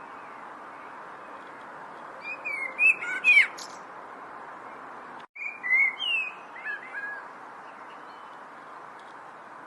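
A songbird singing two short phrases of chirps and slurred whistles, one about two seconds in and another around six seconds, over a steady hiss of background noise. The sound drops out completely for an instant between the phrases.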